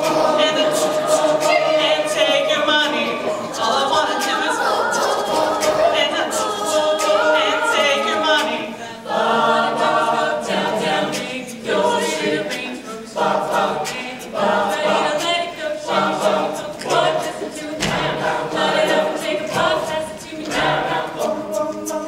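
Mixed-voice a cappella group singing a hip-hop medley in close harmony over a sharp percussive beat. From about nine seconds in, the voices break into short, clipped chords.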